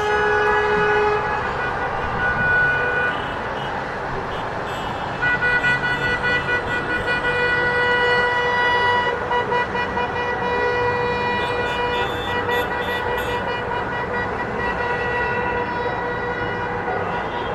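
Many horns blaring together in celebration: long, overlapping held tones at different pitches that start and stop at different times, over a steady noisy din.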